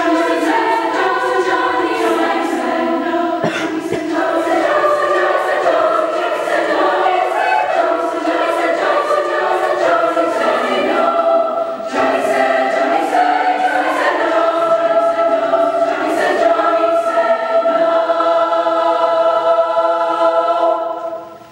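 Girls' choir singing in full harmony, closing on a long held chord that cuts off just before the end.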